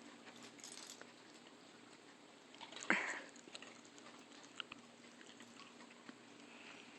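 A dog nosing and pawing at a plastic treat puzzle toy: faint scattered clicks and scrapes, with one louder short rush of noise about three seconds in.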